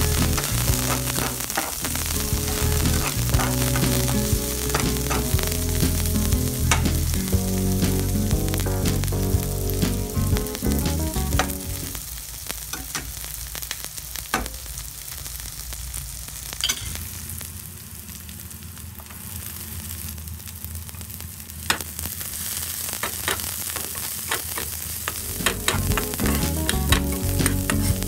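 Garlic and onion sizzling in hot olive oil in a pan, stirred with a spatula that scrapes and clicks against the pan now and then.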